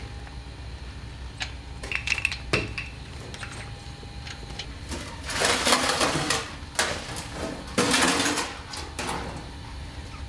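Handling noises from chemical-suited firefighters working with canisters and tools: a few clinks and knocks, one with a short metallic ring, then two longer bouts of rustling and scraping. A steady low hum runs underneath.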